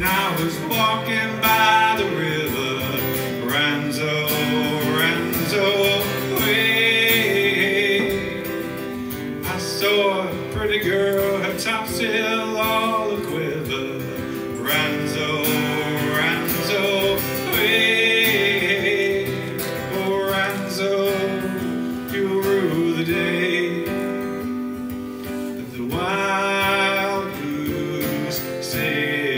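A sea shanty played live: an acoustic guitar strummed steadily while a man sings, amplified through a small PA.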